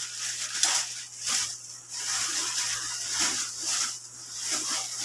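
Thin clear plastic bag crinkling and rustling as it is handled and opened, in uneven crackles.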